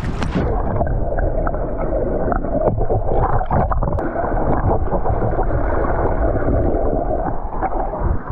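Muffled underwater sloshing and bubbling from a child kicking and paddling, heard through a submerged waterproof camera. About half a second in, the camera goes under and the higher sounds drop away.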